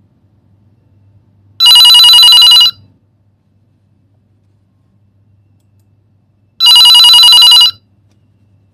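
Telephone ringing: two rings about a second long each, about five seconds apart, each ring a rapid trill.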